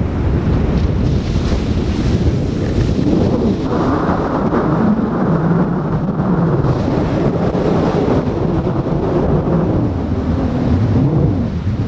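Wind buffeting the microphone over the steady wash of breaking ocean surf.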